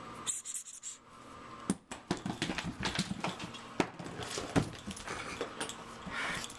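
Puppy's claws clicking and paws scuffling on a hardwood floor as it scampers about with a toy: a quick, irregular run of clicks and light knocks with one sharper knock a little after the middle.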